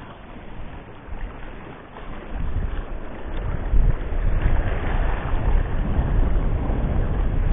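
Sea wind buffeting the microphone, a low rumble that grows louder about two seconds in, over the wash of waves against shore rocks.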